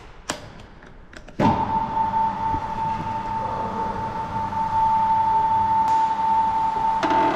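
An electric motor starts about a second and a half in and runs with a steady whine. A second, lower tone joins it near the end.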